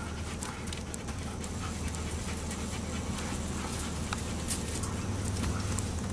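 A dog panting, with scattered light clicks over a steady low hum.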